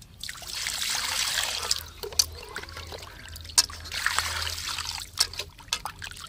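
Water pouring into a metal kadai onto cut pieces of spiny eel (bami fish) as they are rinsed by hand, splashing and trickling in two pours, with a few sharp knocks as the pieces are handled in the pan.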